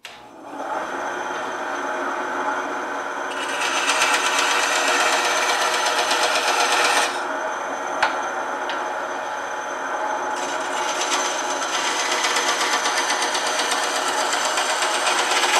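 Bandsaw with a metal-cutting blade running and cutting wooden knife-handle scales. The cutting is louder and hissier from about three seconds in until seven, and again from about ten seconds on, with a single click about eight seconds in.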